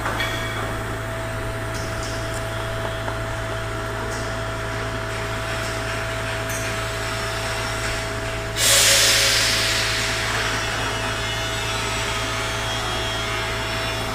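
Steady machinery hum with a thin constant tone in a railway coach repair shed. About eight and a half seconds in, a loud rushing hiss starts suddenly, then eases off a little and keeps going.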